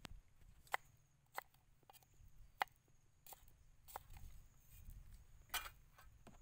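Kitchen knife slicing garlic cloves on a thick round wooden chopping block: a series of sharp, irregular knocks as the blade goes through each clove and strikes the wood, roughly one every half second to second.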